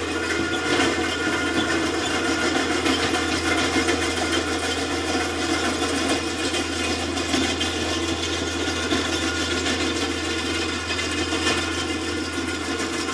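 Skid-steer loader's engine running steadily as the machine grades soil, a constant machine drone that eases slightly toward the end as it moves away.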